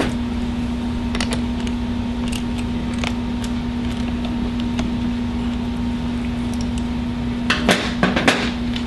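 Hand tools working on a bolt and nut: a few light metallic clicks and taps, with a cluster of sharper clicks near the end, over a steady low electrical hum.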